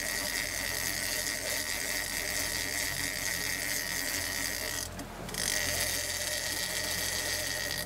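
Big-game lever-drag fishing reel's drag screaming with a steady high whine as a hooked fish strips line off it. The whine stops for about half a second about five seconds in, then starts again as the fish runs on.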